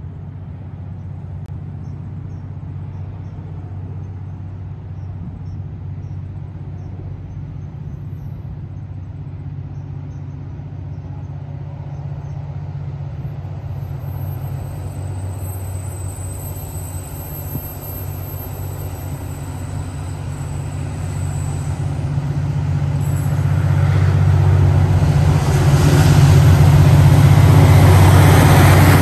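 KiwiRail diesel freight locomotive approaching with a log train, its engine's low steady drone building gradually and then sharply louder over the last several seconds as the locomotive comes alongside. A faint high ringing joins about halfway through.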